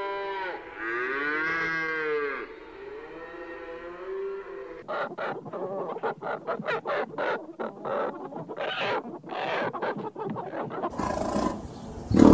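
Cattle mooing in long drawn-out calls, then from about five seconds in a flock of hens clucking in quick, busy bursts; a louder lion roar breaks in at the very end.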